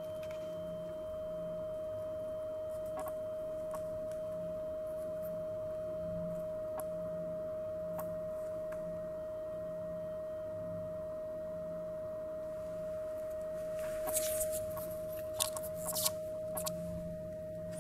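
Steady 625 Hz sine tone from a loudspeaker driven by a function generator, sounding into a closed-end perspex resonance tube. A few short clicks and rustles come in near the end.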